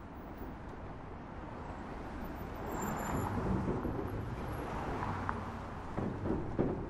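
Distant city traffic noise, a steady wash of urban ambience that swells gradually and then eases, with a few faint knocks near the end.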